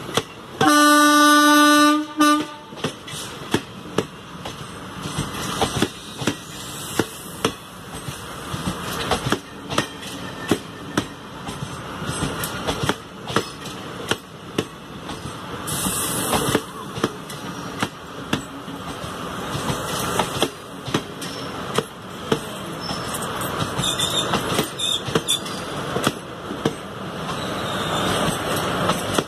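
Indian Railways passenger coaches of an express train rolling past on departure, their wheels clicking over the rail joints. A loud train horn sounds once, for about a second and a half, near the start.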